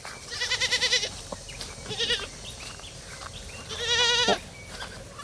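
Goats bleating three times, each call with a quavering, wavering pitch. The first and last bleats are longer and the middle one is short.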